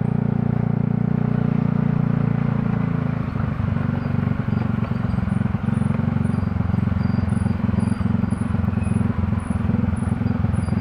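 Vehicle running along a road. The engine hum is steady for the first three seconds, then turns rough and rumbling.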